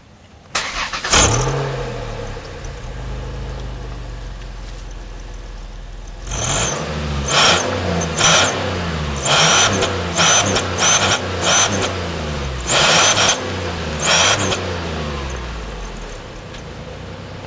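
A car engine starts about half a second in and settles to idle. From about six seconds it is blipped in about eight short revs, each rev bringing a high hissing whistle from a fake turbo whistler fitted in the exhaust.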